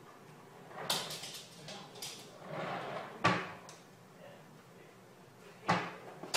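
A swivel office chair knocking, rattling and scraping as a small Chinese crested dog scrambles up onto the seat to reach the kitchen counter and climbs back down. There are a few sharp knocks, the loudest about three seconds in and near the end, and a rustling scrape in between.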